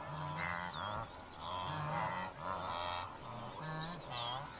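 A massed herd of wildebeest calling: many overlapping nasal, honking grunts, one after another. Above them a faint high chirp repeats about three times a second, and a couple of short whistling bird notes come through.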